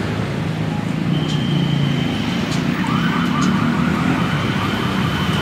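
Steady background traffic hum. From about three seconds in, a siren-like warbling tone repeats about five times a second above a thin, steady high whistle.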